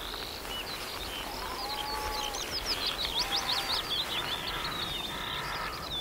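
Dawn chorus: many wild birds singing at once, a dense run of quick high chirps and trills busiest in the middle, with a few lower, steadier whistled notes beneath.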